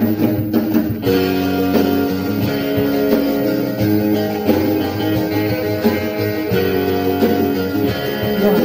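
Background music: a guitar-led instrumental with plucked and strummed notes.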